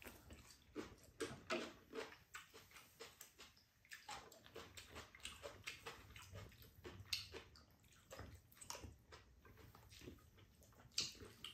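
Faint eating sounds of two people eating bean sprout rice bowls: chewing and slurping, with spoons scraping and clicking against ceramic bowls in scattered short clicks.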